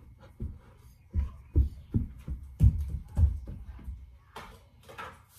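A string of irregular low thumps, a child's feet running and jumping on a hardwood floor close by.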